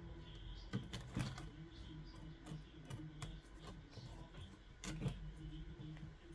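Irregular clicks and light knocks of small plastic parts being handled during the teardown of a speaker, about a dozen sharp taps spread unevenly, the loudest about a second in and near five seconds, over a low steady hum.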